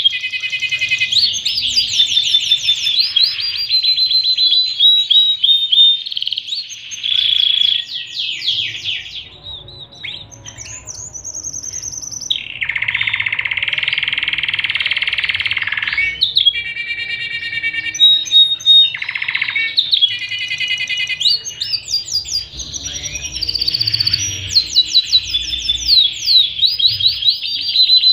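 Domestic canary singing a long, varied song of fast repeated trills and chirping rolls. About halfway through, a harsh buzzing roll lasts some three seconds.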